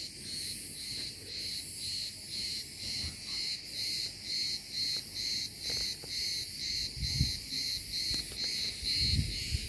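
Cicadas buzzing in a chorus that pulses about twice a second. A few low thumps come near the end.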